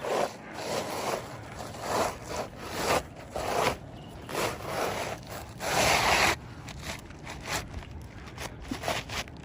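Roof shingles being scraped as they are lifted and worked under to pull out their nails. A run of short scrapes about once a second, with a longer scrape about six seconds in and fainter, shorter ones near the end.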